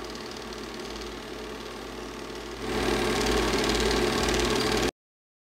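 Super 8 film projector running with a steady mechanical whir and fine clatter. It gets louder about two and a half seconds in, then cuts off abruptly.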